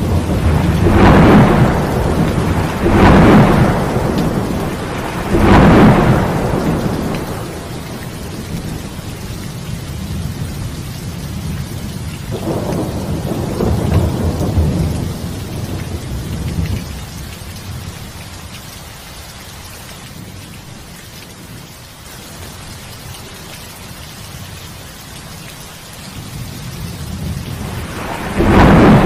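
Heavy rain with rolling thunder. Three loud rumbles come in the first six seconds, then a softer rumble around the middle, then a lull of steady rain. Another loud peal of thunder breaks in near the end.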